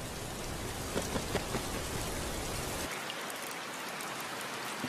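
Steady rain falling on rainforest leaves, an even hiss with a few louder drops about a second in. A little under three seconds in the low rumble falls away, leaving a lighter patter.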